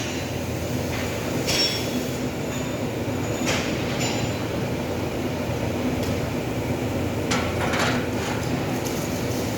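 Steady machine hum in a metalworking shop, with a few sharp metallic clinks and taps, some ringing briefly.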